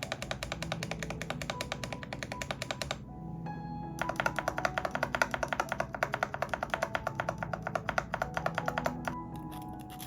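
Fast typing on a Mathew Tech MK80 mechanical keyboard with lubed Akko V3 Cream Blue tactile switches. It breaks off for about a second near the three-second mark, then resumes, and thins out near the end. Background music plays underneath.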